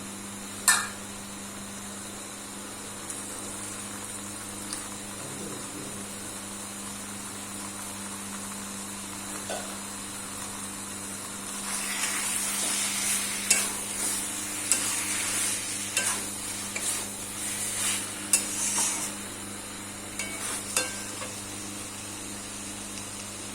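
Chicken pieces with spice paste sizzling in a pan while being stirred and scraped with a spatula, the kosha stage of slow dry-frying. There is a single sharp clink about a second in, and the stirring and scraping are loudest from about halfway through until near the end.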